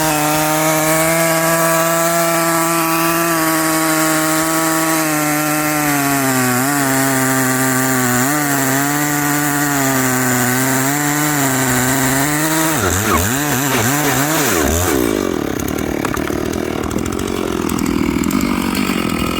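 Dolmar 7900 80cc two-stroke chainsaw at full throttle, ripping lengthwise through a pine log in a freehand milling cut. Its pitch holds steady at first, then dips again and again as the bar loads up in the wood. About two-thirds of the way in it falls and surges, and near the end it runs on at a lower pitch.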